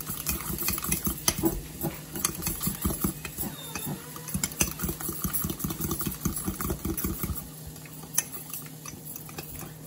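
A fork beating egg-and-cheese waffle batter in a glass measuring cup, with quick, uneven clinking taps against the glass.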